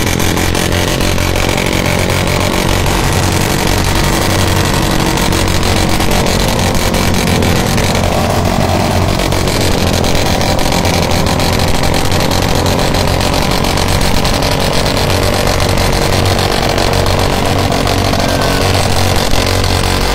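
Motorcycle engine held at high revs, steady and loud, as its rear wheel spins in loose dirt against a rope tug.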